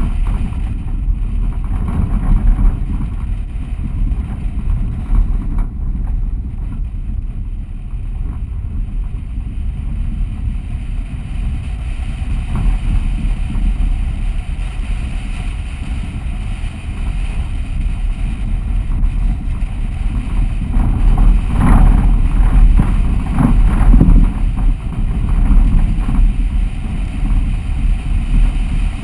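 Low, steady rumble and wind buffeting on the microphone of a camera mounted on the hood of a vehicle driving along a dirt road. The rumble swells with stronger gusts a little past twenty seconds in.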